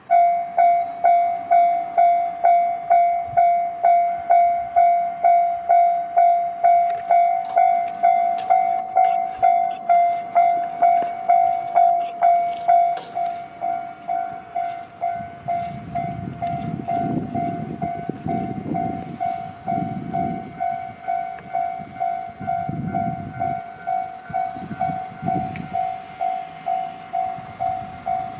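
Japanese railroad crossing warning bell starting suddenly and clanging steadily at about two strikes a second. From about 15 seconds in, a train rumbles through the crossing in swelling pulses under the bell.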